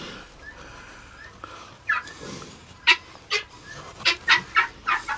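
Guinea fowl giving a run of short, harsh, repeated calls that begin about two seconds in and come faster toward the end.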